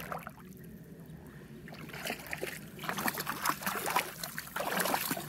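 Wading through shallow lake water: faint at first, then a run of quick, irregular splashes and sloshes from about two seconds in.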